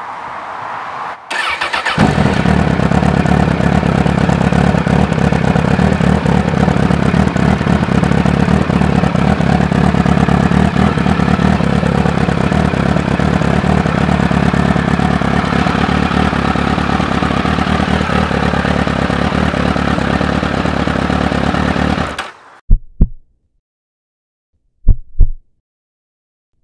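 Sport motorcycle engine started: a brief starter crank about a second in, then the engine catches and idles steadily for about twenty seconds before cutting off abruptly. Afterwards, three short low double thumps, about two seconds apart.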